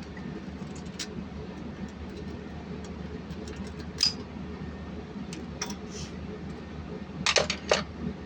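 Metal tools and engine parts clinking as they are handled: a light clink about a second in, a louder one around four seconds, and a quick cluster of clinks near the end, over a steady low hum.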